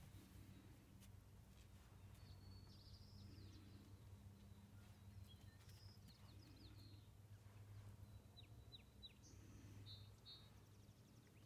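Near silence: faint outdoor ambience with a low steady hum and a scattering of faint bird chirps, including three quick downward-sweeping notes about three-quarters of the way through.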